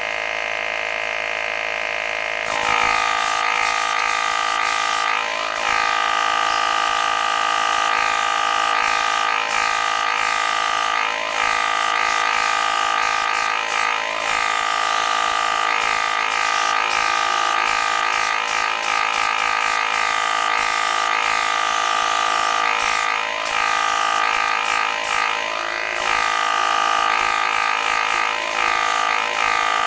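Airbrush compressor running with a steady electric buzz, under the hiss of air and paint spraying from the airbrush. It gets louder about two and a half seconds in, and its pitch wavers briefly every few seconds.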